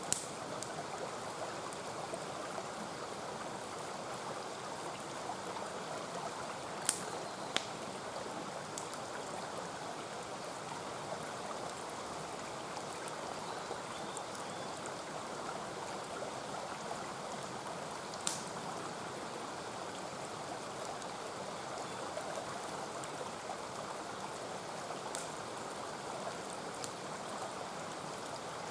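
Mountain stream flowing steadily, with a few sharp pops from a wood campfire crackling, about four in all.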